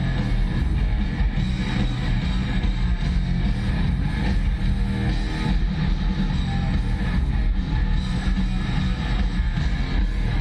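Heavy metal band playing live through a stadium sound system: distorted electric guitars over a drum kit, heard from within the crowd with a heavy, booming low end.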